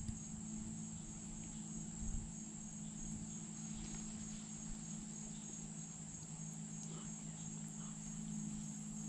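Steady, high-pitched chorus of crickets or similar insects trilling in the forest, with a faint low hum underneath. A soft knock comes about two seconds in.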